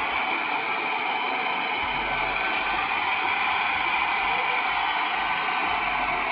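Hand-held hair dryer running steadily, blowing air over a freshly coated silk-screen frame to dry it: an even, unbroken rushing noise.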